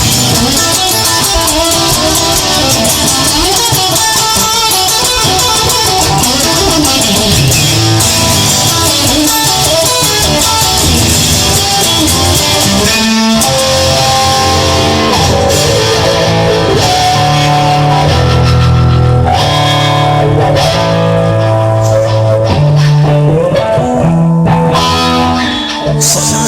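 Instrumental rock music with guitar and bass, no singing. The texture changes about halfway through, after a brief break, into held bass notes.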